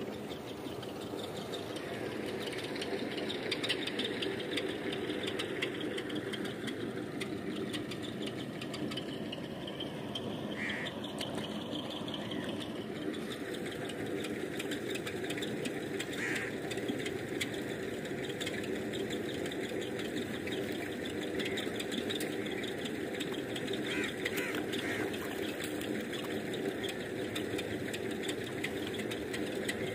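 An engine running steadily without a break, with a few short high chirps scattered through it.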